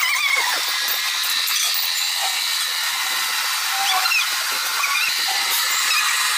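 Drill press machining a steel pin: a steady, loud high hiss of metal cutting, with a few short wavering squeals over it.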